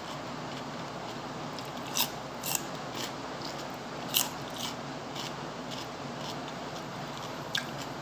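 Eating sounds: a handful of short, crisp crunches from biting and chewing food, over a steady background hiss.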